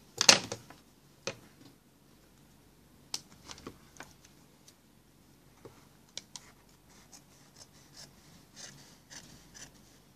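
Scissors snipping through jacket fabric in short, scattered cuts, with the cloth rustling as it is handled, while a welt pocket opening is cut. A loud brief rustle and knock from handling comes right at the start.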